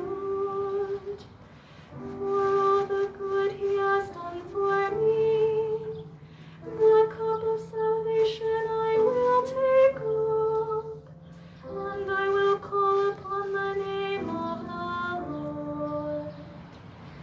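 A woman singing the verses of a slow responsorial psalm with keyboard accompaniment, in long held notes and phrases separated by short pauses.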